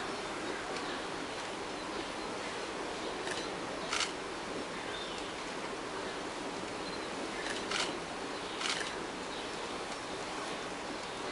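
Steady outdoor background hiss, broken by four brief sharp sounds: two close together a little over three seconds in, and two more about eight seconds in.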